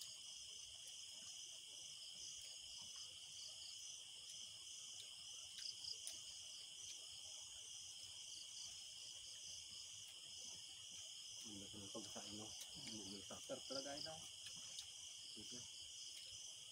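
Night insect chorus of crickets: a steady high-pitched trilling with a faster pulsing layer above it. About twelve seconds in, a man's voice briefly mutters a few words.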